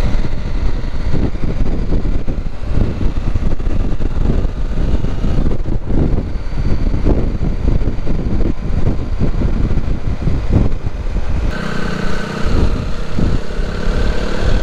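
CFMoto 800 motorcycle riding on the road, its engine under heavy, uneven wind rumble on the microphone. About eleven seconds in the wind drops and a steady engine hum comes through more plainly.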